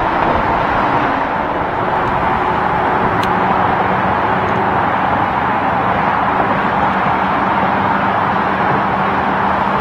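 Steady highway traffic noise from passing semi trucks and cars, with tyres on the road and engines running. A steady low engine hum comes in about two seconds in.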